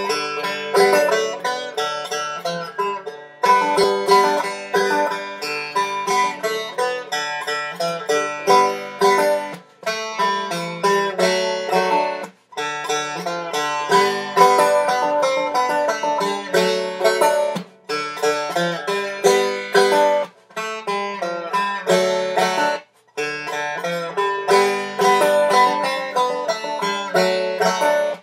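Five-string resonator banjo played in minstrel stroke style, a run of quick struck notes and ringing strums, a beginner's first attempt at the style. The playing stops briefly several times and picks up again.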